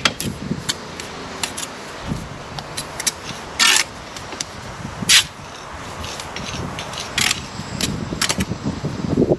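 Brick trowel working bricks and mortar: scattered sharp clinks and taps as bricks are laid and tapped down, with a few short scrapes, the loudest a little under four seconds in and again about five seconds in.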